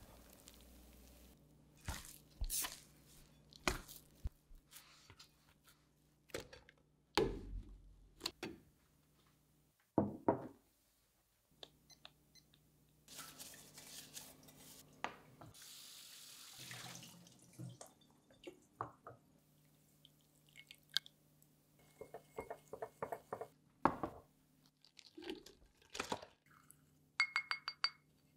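A run of kitchen sounds: a wire dough whisk knocking and scraping in a ceramic bowl of sourdough dough, then a tap running at the sink while a glass jar is rinsed, and near the end a spoon clinking rapidly against a small glass bowl as salt is stirred into water.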